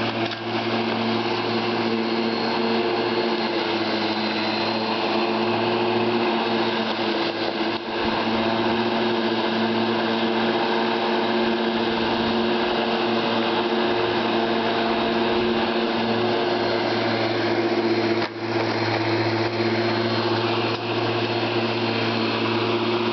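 Einhell lawnmower running steadily at constant speed, a steady pitched motor hum with noise over it and a few brief dips in level.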